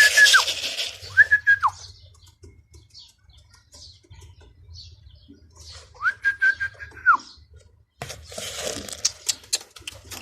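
A person whistling to domestic pigeons in flight: three held whistles, each gliding up at the start and down at the end, near the start and about six seconds in. Bursts of rustling and clatter, fitting pigeons' wings, come at the start and about eight seconds in.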